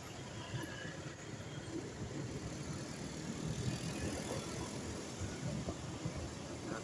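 Riding a motorbike through city traffic: steady engine and road rumble with wind buffeting the microphone.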